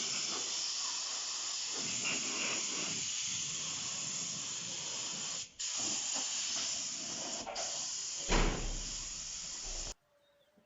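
Pressure washer spraying water, a steady loud hiss with two brief breaks, cutting off suddenly near the end.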